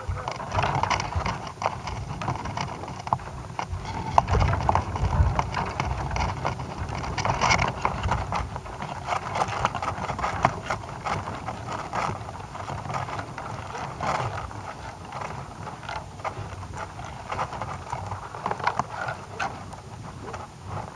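Wind buffeting the microphone of a camera hung from a tethered balloon, with many irregular clicks and knocks from the swaying camera rig.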